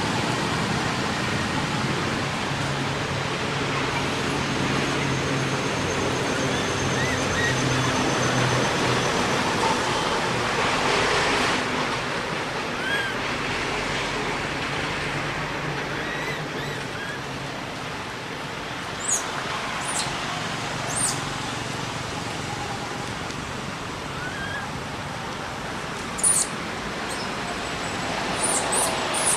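Steady rushing outdoor background noise, with a few faint short chirps and several sharp clicks in the second half.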